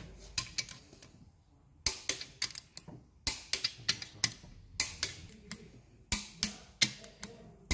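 Long-handled ratchet and socket clicking as nuts are run down onto ARP main-cap studs on a Nissan RB engine block: sharp clicks, about three a second, with a short pause about a second in.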